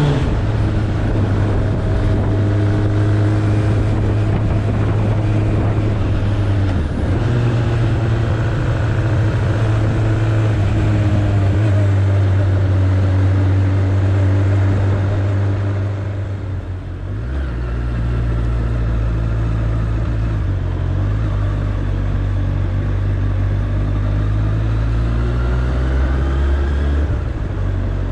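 Suzuki Bandit 1200's inline-four engine running while the bike is ridden along a street. The engine note steps up and down in pitch several times as the rider changes speed, with a short dip in level and pitch about two-thirds of the way through.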